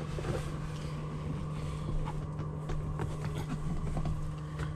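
Steady low mechanical hum with a few faint knocks.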